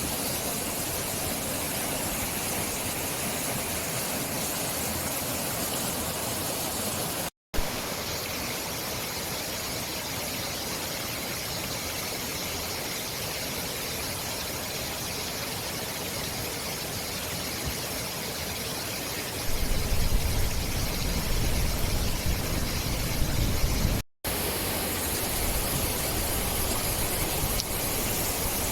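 Steady outdoor hiss, broken twice by brief dropouts to silence, with a louder low rumble for a few seconds past the middle.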